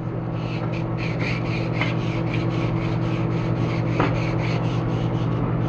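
Hand sanding with sandpaper in quick, even back-and-forth strokes, about five a second, over a steady motor hum.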